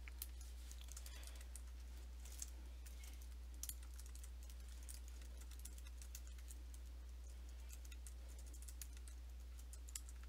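Typing on a computer keyboard: irregular, faint key clicks spaced out over several seconds, over a steady low hum.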